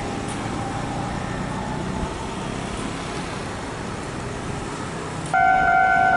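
Steady background rumble and hiss like road traffic. About five seconds in, a loud steady two-pitched warning tone starts abruptly and holds.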